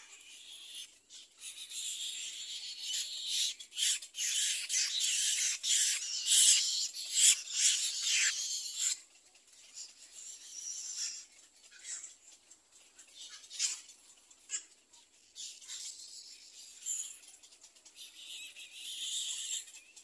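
Little egret chicks' dry, rasping begging chatter with scattered clicks, loudest and nearly continuous for the first several seconds, then in shorter bursts, with a last stretch near the end.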